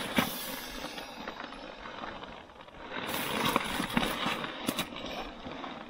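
Nylon fabric rustling and crinkling as a dry-bag-style pump sack is rolled up by hand, squeezing its air into an inflatable air mattress. The handling gets louder about three seconds in, with a few sharp crinkles.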